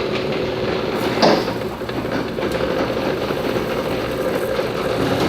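Vehicle lift lowering a pickup truck, running steadily with a faint held hum, with one sharp knock just over a second in.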